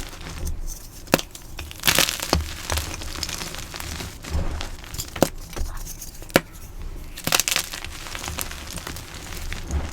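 Blocks of dyed gym chalk being crushed by hand: irregular crisp crunches and sharp cracks, with dull low thumps under them.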